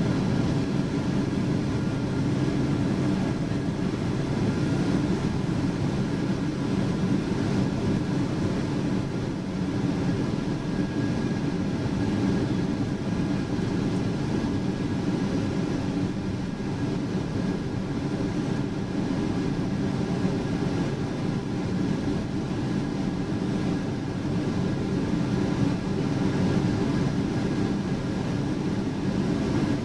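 Steady cabin noise of a Boeing 777-200 airliner: a constant rumble of engines and airflow, with a faint steady whine over it.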